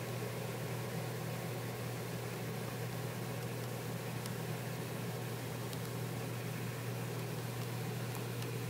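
Steady low hum under a constant hiss, with a few faint ticks.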